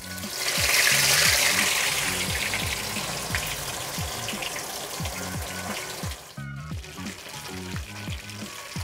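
Masala-coated tilapia going into hot oil in a kadai: a loud burst of sizzling about half a second in, easing to a steady deep-frying crackle. Background music with a regular beat runs underneath.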